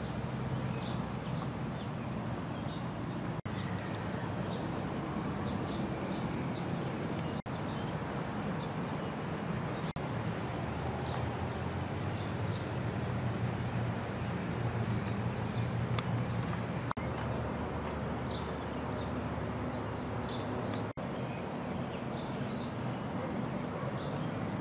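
Outdoor ambience: small birds chirping over a steady low hum, broken by a few brief dropouts where recordings are spliced together.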